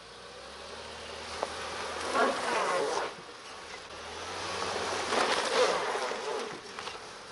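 Honda Pilot SUV's engine revving in two buzzing surges, the first about two seconds in and the second near the middle, as it works at low speed over a muddy, snowy track where its wheels struggle for grip.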